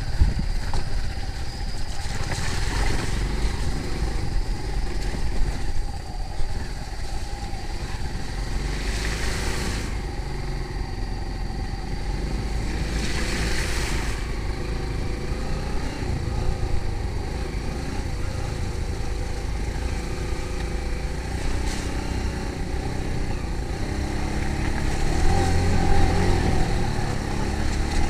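An engine running steadily, with two brief rushes of hiss about nine and thirteen seconds in.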